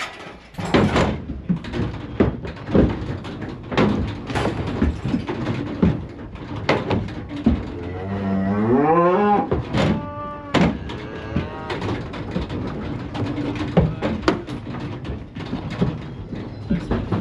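Cattle mooing: one long moo rising in pitch about eight seconds in, a second moo right after it, and a lot of sharp knocking and clatter throughout.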